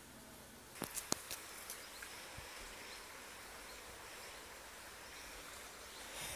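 Faint outdoor background noise, with a quick cluster of four or five sharp clicks about a second in.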